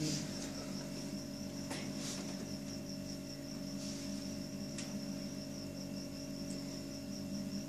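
High-pitched insect chirping, an even pulse of about five chirps a second, over a steady low hum, with a few faint clicks.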